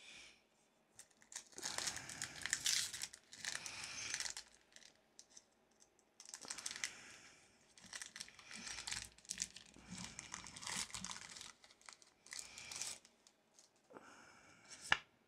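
Foil wrapper of a Pokémon card booster pack crinkling and tearing as it is opened, in irregular bursts, with a single sharp click near the end.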